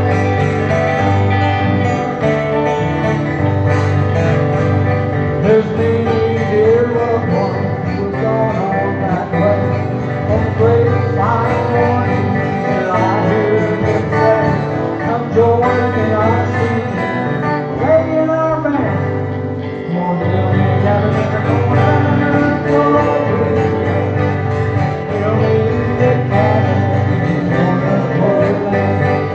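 Live country gospel music played by a band, led by guitar, running continuously at a steady loud level.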